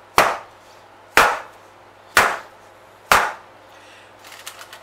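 A 20 cm springform cake tin full of cheesecake filling picked up and dropped four times: a sharp knock about once a second.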